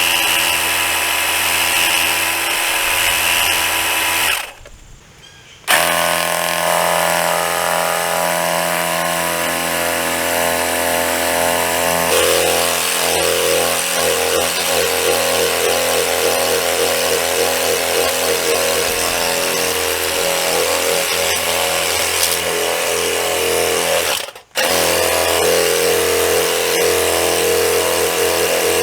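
Battery-powered cordless pressure washer's pump motor running steadily while spraying water, a loud electric whine. It cuts out for about a second roughly four seconds in and again very briefly near the end, then starts straight back up.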